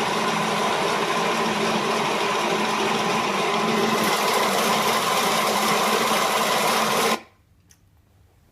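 Steady machine-like running noise with a constant hum in it, serving as the test noise in a soundproofing comparison; it stops abruptly about seven seconds in.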